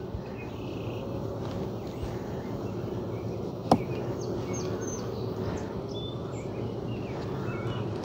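Honeybee colony humming steadily from the opened hive. About four seconds in there is one sharp click of the metal hive tool against the wooden frames, and faint bird chirps come through in the second half.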